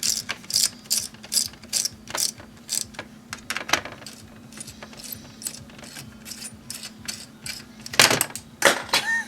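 Ratcheting screwdriver clicking as screws are driven into a laptop chassis, a quick run of clicks, about two or three a second, that thins out after a few seconds. A sharp knock about eight seconds in.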